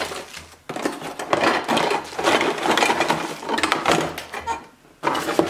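A cardboard box being opened and a plastic dog puzzle toy, a Trixie Turn Around, pulled out of it: rustling of cardboard and plastic wrap with light knocks and clatter of hard plastic parts.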